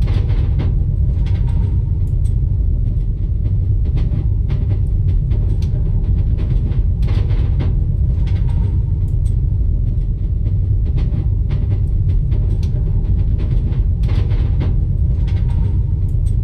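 Train carriage running along the rails: a steady, heavy low rumble with irregular clicks and knocks.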